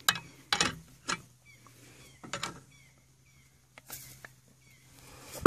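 Irregular knocks and creaks from a ride-on mower tyre and rim being pressed down under a caravan's weight to break the tyre bead. A loud sharp knock near the end is typical of the bead letting go of the rim.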